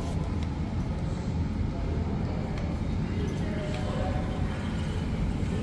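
Steady low room rumble with faint voices murmuring in the background.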